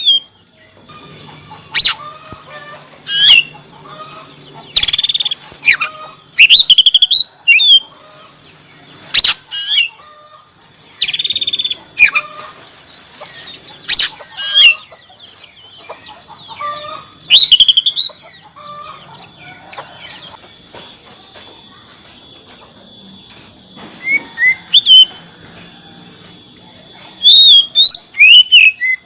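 Oriental magpie-robin singing loud, varied phrases in bursts of about a second, with short pauses between them and a lull of several seconds past the middle.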